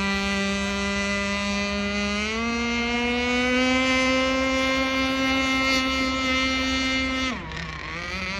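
Small two-stroke gas engine of a 4-foot RC speedboat running at high speed, its pitch rising about two seconds in as it speeds up. Near the end the pitch drops sharply for a moment as the throttle is eased, then climbs again.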